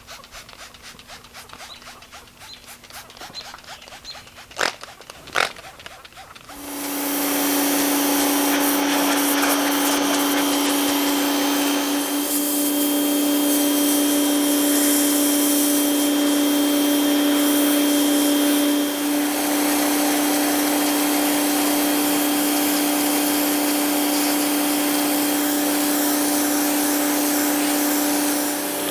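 A few handling clicks and two sharp knocks, then about six and a half seconds in an electric power tool starts and runs steadily: a constant motor whine under a broad grinding hiss, with a brief dip about halfway through.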